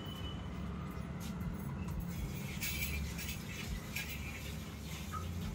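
A metal spoon stirring vermicelli as it roasts in ghee in a metal pot: soft scraping and rustling with light, scattered clinks of the spoon against the pot, over a steady low hum.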